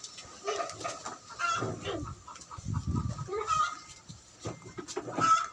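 Chickens clucking: a string of short, pitched calls repeated irregularly, several within a few seconds.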